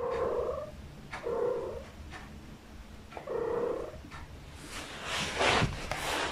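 A long-haired cat gives three short, low calls a second or two apart. A louder noisy rush follows about five seconds in.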